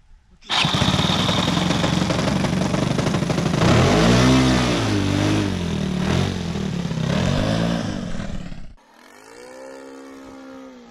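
Engine of a Hangar 9 Piper Pawnee model airplane, a 15cc O.S., starting abruptly about half a second in and running loud, its revs dipping and rising a couple of times. It cuts off suddenly near the end and a fainter model-plane engine is heard in flight.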